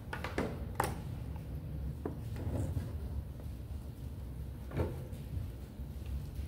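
Handling noise from fishing gear: a few sharp knocks and clicks, the loudest about a second in, over a low steady hum.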